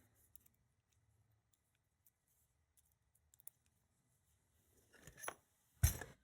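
Small metallic clicks and handling of lock-picking tools against a lock, with a short scrape about five seconds in and one sharper clack near the end.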